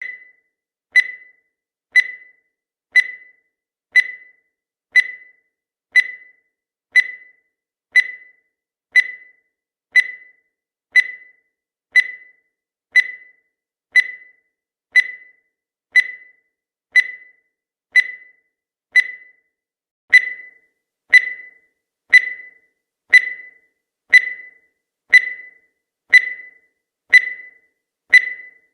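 Countdown timer sound effect: a short, high-pitched tick once every second, each one sharp and fading quickly, a little louder from about twenty seconds in.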